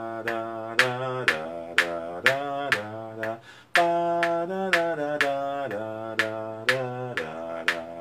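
A man singing a melody in three-beat time, holding and stepping between notes, with a sharp click marking each beat about twice a second. The phrase breaks briefly a little over three seconds in.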